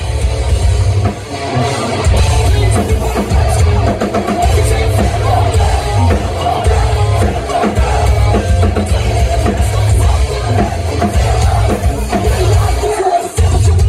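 Metalcore band playing live at full volume: distorted electric guitars and a pounding drum kit, with a heavy bass low end.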